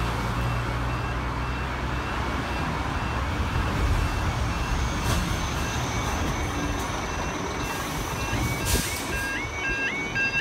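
UK level crossing warning alarm sounding as the crossing lights activate: a steady repeating beep that changes about eight seconds in to a rising yodel tone, about two a second. A road vehicle rumbles underneath in the first few seconds.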